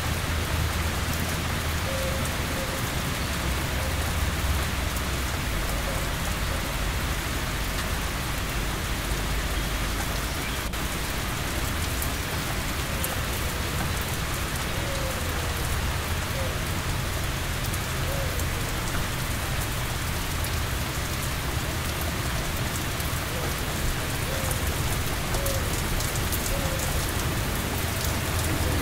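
Steady heavy rain falling on surfaces, with a low rumble of thunder swelling underneath at times.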